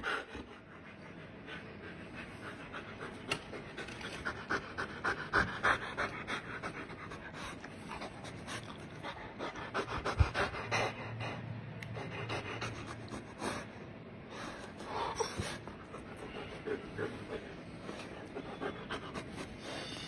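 Husky panting hard with its mouth open, a quick run of breaths. There is a single thump about halfway through.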